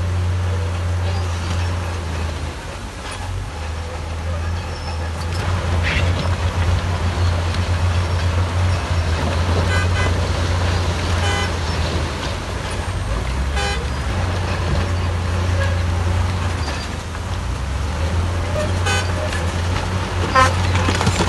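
Diesel engine of a crawler bulldozer at work, running steadily with a low drone. Several short horn toots sound over it around the middle and near the end.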